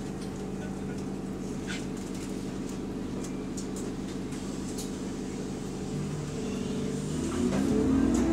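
Bus engine and cooling fan running steadily at idle, heard from inside the bus as a low, even hum. From about six seconds in, the note rises and starts to climb as the bus begins to pull away.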